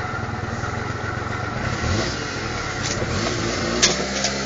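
Small motor scooter engine running, revving up briefly about two seconds in, with a couple of sharp clicks near the end.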